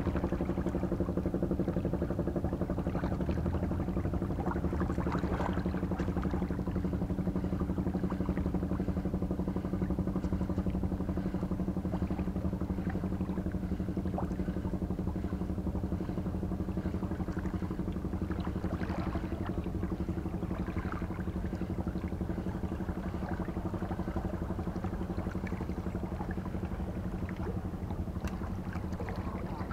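Steady low drone of an engine running at an even speed, with a few faint scattered clicks over it.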